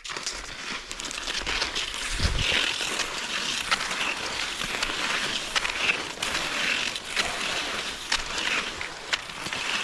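Cross-country skis hissing and scraping over a packed snow trail, swelling and fading with each stride, with scattered sharp clicks and a low thump about two seconds in.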